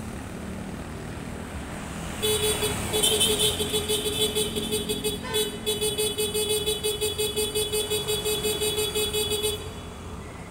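A horn sounds from about two seconds in for roughly seven seconds, one steady buzzy tone with a fast pulsing flutter. It breaks off briefly about five seconds in, then cuts off near the end over low street noise.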